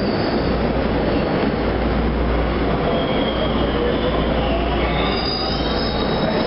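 Interior of a TTC H6 (UTDC) subway car running on the rails: a steady, loud rumble of wheels and running gear, with thin high wheel squeals that come and go, most from about halfway through.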